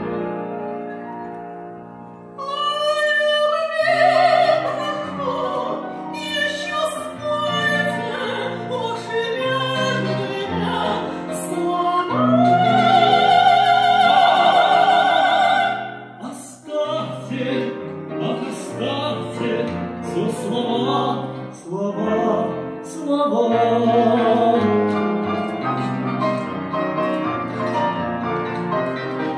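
Operatic singing with vibrato from a tenor and mezzo-soprano comic duet in Russian, over grand piano accompaniment. One long held note comes about twelve seconds in and breaks off around sixteen seconds.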